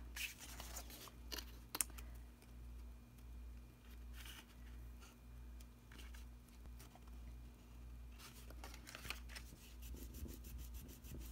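Hands handling cardstock box pieces and pressing a freshly glued flap down, with faint scattered rustles and rubs of paper over a steady low hum.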